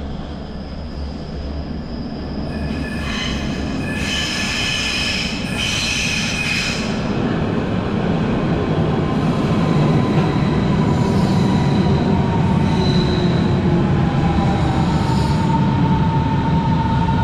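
Berlin S-Bahn Class 481 electric multiple unit pulling into an underground station, its rumble growing steadily louder. A high-pitched wheel squeal comes about three to seven seconds in, then a whine falls in pitch as the train slows along the platform.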